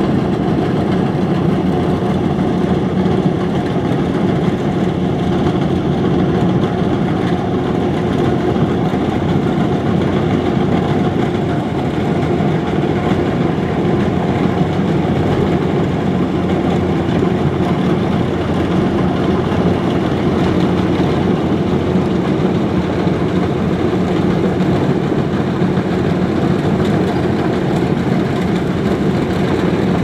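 Kubota DC105X combine harvester running steadily as it cuts through standing rice: a constant diesel engine drone that keeps an even pace and level throughout.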